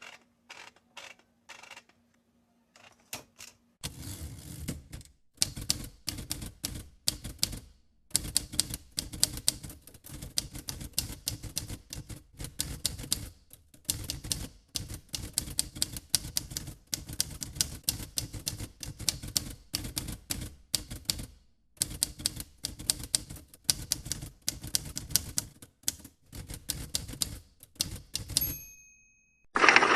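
Manual typewriter keys clattering in rapid runs of keystrokes, used as sound-effect speech. There are a few separate clicks at first and short pauses between the bursts. A brief ringing tone sounds near the end as the typing stops.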